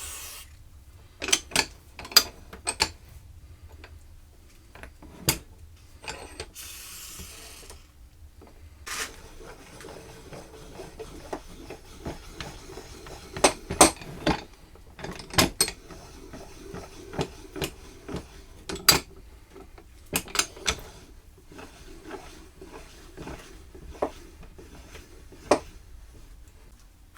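Metal clicks, knocks and rubbing from a quick-release woodworking vise's mechanism being handled and worked, with a short hiss of spray dry lubricant about seven seconds in.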